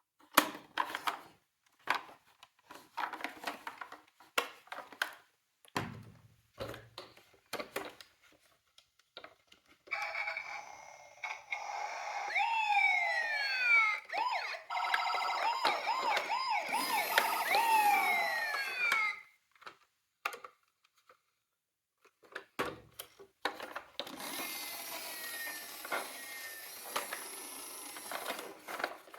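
Electronic toy sirens from miniature ambulance and police cars, several at once, with rising and falling wails and a fast up-and-down warble for about nine seconds in the middle. Before them come scattered clicks and knocks of the toy cars being handled. Near the end there is more clicking over a fainter steady hiss.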